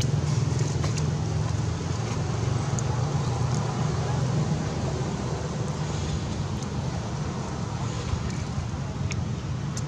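Steady low outdoor rumble, like wind or distant traffic, with a few faint sharp clicks scattered through it.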